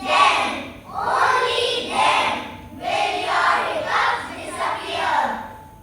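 A group of children reciting a poem together in chorus, their voices speaking in unison in short phrases with brief dips between them.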